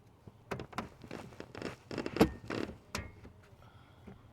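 A quick run of plastic clicks and taps as a replacement ignition switch is handled and fitted into the steering column, the loudest click just after two seconds in.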